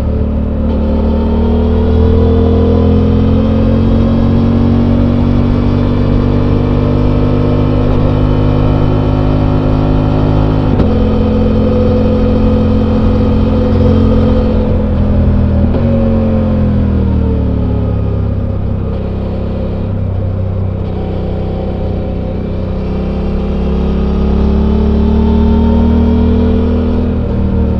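Suzuki V-Strom 800's 776 cc parallel-twin engine on its stock exhaust, heard on board while riding. The engine note holds and rises under throttle, shifts abruptly about eleven seconds in, falls away as the bike slows past the middle, then climbs again under acceleration before easing near the end.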